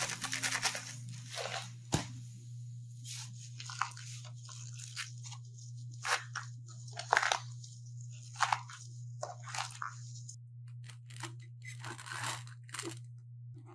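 Pickling salt pouring from a box onto dried mustard greens with a brief hiss, then irregular crunching and rustling as hands rub and squeeze the salted leaves to soften them for pickling, and a sharp click about two seconds in. A low steady hum runs underneath.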